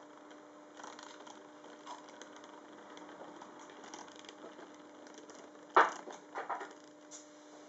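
Fleischmann model steam locomotive running slowly along its track: a faint steady hum with light clicks and rattles, and a sharp click about six seconds in followed by two smaller ones.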